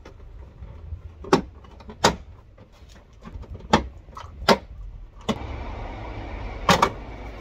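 Sharp plastic snaps as the tailgate's interior trim panel is pried and tugged off, its push-in clips popping free one after another, six times over about five and a half seconds. A steady rushing noise sets in about five seconds in, under a low rumble.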